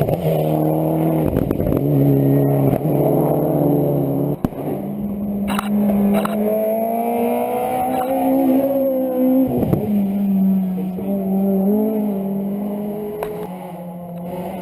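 Rally car engine heard from onboard at speed, its pitch climbing under acceleration and dropping sharply at gear changes or lifts, with a few brief knocks.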